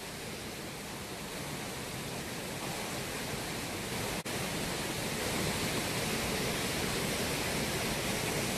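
Steady rush of the River Colne pouring over its weirs, growing a little louder. It cuts out for an instant about four seconds in.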